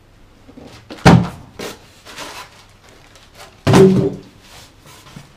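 Cardboard cartons being handled and set down: two loud thuds, about a second in and again near four seconds, the second longer with a short low ring, and softer knocks between.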